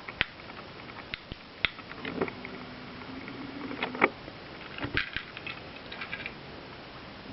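Scattered light clicks and taps as the breadboard LED circuit is reset by hand, with a faint low hum for a couple of seconds in the middle.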